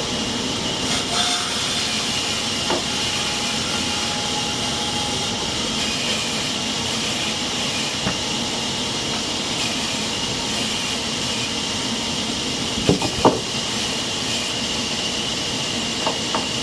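Sawmill machinery running steadily, a hissing noise with a high steady whine, and a few sharp knocks about two thirds of the way through.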